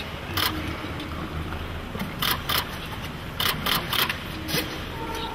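A camera shutter clicking about seven times at uneven intervals, some clicks in quick pairs, over a low steady hum of room noise.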